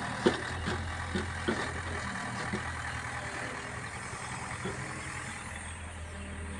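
Diesel engine of a crawler excavator running steadily at a steady low hum, with a few light knocks.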